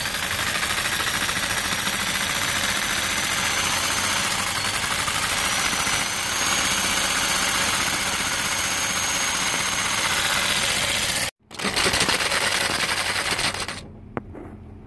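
Power saw with a fine-tooth metal-cutting blade cutting through a threaded lamp rod, running continuously with a thin high whine on top. It stops abruptly about 11 seconds in, then runs again for about two seconds and cuts off near the end.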